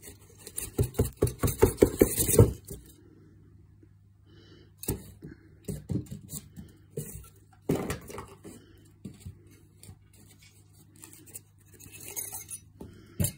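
Cardboard box and foam packing handled by hand while a stove fan is worked out of the box. A rapid run of short scrapes fills the first couple of seconds, followed by scattered knocks and rustles.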